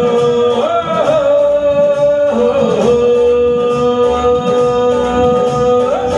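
Bollywood film song playing: a singer holds long, drawn-out notes with a slight bend in pitch over instrumental backing.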